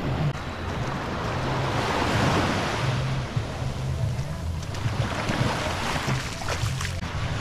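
Waves washing up on a beach, the surf swelling louder about two seconds in and again later, with wind rumbling on the microphone.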